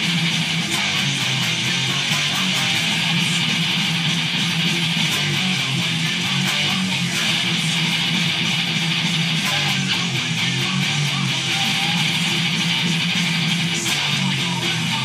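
Electric guitar being played without a break: a steady stream of picked notes and chords.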